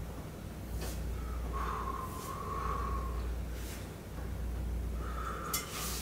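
Hands massaging bare legs on a towel-covered table: soft rustles and brushing strokes over a steady low hum, with two faint held tones.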